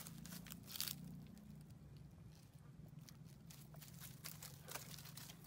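Faint rustling and crackling of dry leaf litter, with a few sharper crackles about a second in and near the end, over a low steady hum.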